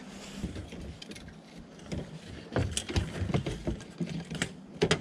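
Round mesh crab pot being set up in an aluminium boat: irregular clicks, taps and light knocks of its frame and fittings, busiest in the second half.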